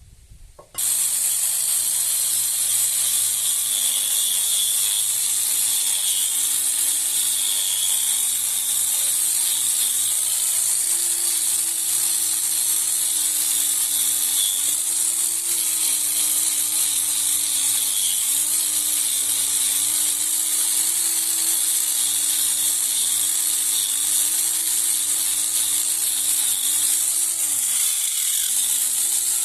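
An electric power tool starts about a second in and runs steadily with a strong high hiss. Its motor pitch sags and recovers every few seconds, as it does when the tool is pressed into the work and eased off.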